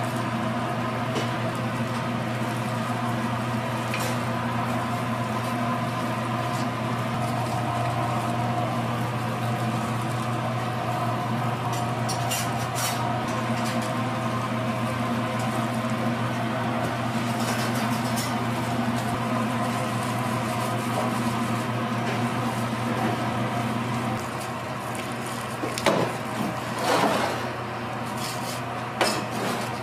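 Steady mechanical hum of kitchen equipment, which changes a little past three quarters of the way through. A few brief handling noises come near the end, as a kimbap is rolled on a bamboo mat.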